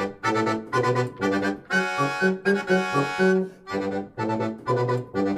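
Background music: a bouncy tune of short, detached chords on a reedy instrument.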